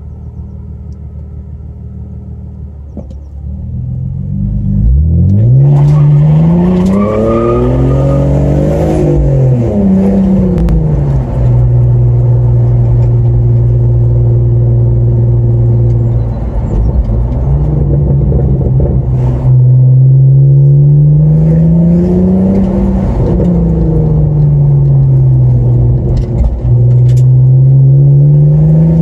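BMW E46 330ci's 3.0-litre straight-six with the rear exhaust silencer removed, heard from inside the cabin. It runs low and quiet at first, then revs up hard about five seconds in, its note climbing and dropping back at each gear change, holding a steady pitch while cruising, then rising and falling again.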